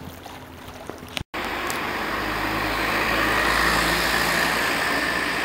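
Road traffic: a motor vehicle passing close by, its engine and tyre noise swelling to a peak about halfway through and then easing slightly. It begins abruptly after a brief, much quieter stretch of outdoor ambience that cuts off about a second in.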